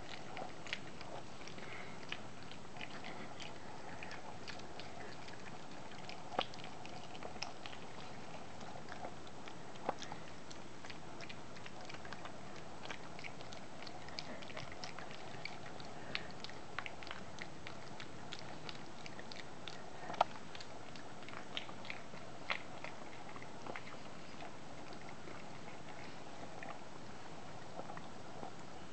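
Toy poodle puppies chewing treats: irregular small crunching clicks, some sharper than others, over a steady background hiss.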